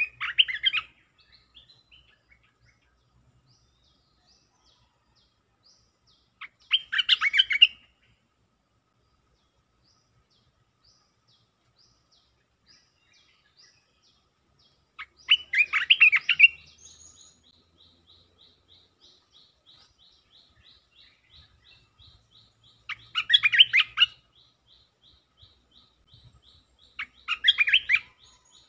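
A caged bulbul singing short bright phrases about a second long, five times with pauses of several seconds between them. From about halfway a faint, fast, evenly repeated high chirping runs on underneath.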